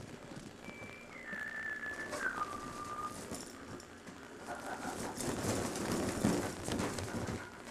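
A thin whistle-like tone that steps down through three held pitches over a couple of seconds, then rubbing and light knocks of rubber balloons being grabbed and jostled by a baby.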